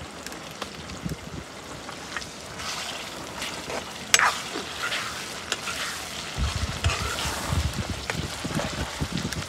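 Onions, tomato and spices sizzling softly in oil in a black two-handled kadai, stirred with a steel ladle that now and then clinks and scrapes against the pan, the sharpest knock about four seconds in.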